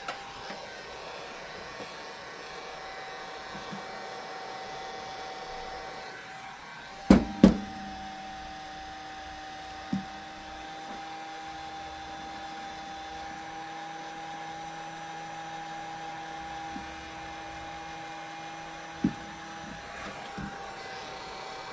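Electric hot-air blower running steadily with a constant whine and a blowing hiss, heating the tablet's screen adhesive to soften it. Two sharp knocks come about 7 seconds in, with single knocks near 10 and 19 seconds, from tools or the tablet being handled.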